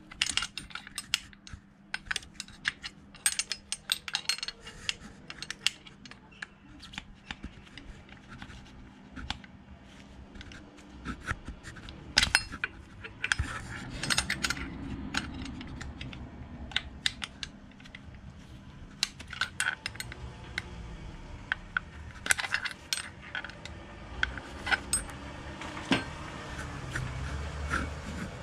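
Hand tools and small metal parts clinking and tapping at irregular intervals during motorcycle engine work, short sharp metallic clicks.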